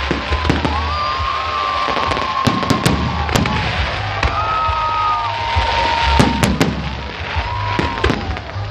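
Aerial fireworks display: a dense run of shell bursts and bangs over continuous crackling, with several held whistling tones over it.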